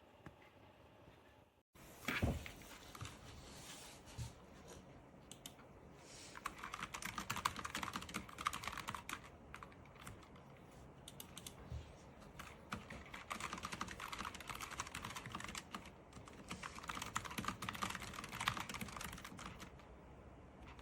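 Typing on a Logitech low-profile mechanical keyboard: fast runs of key clicks in bursts with short pauses, after a single knock about two seconds in.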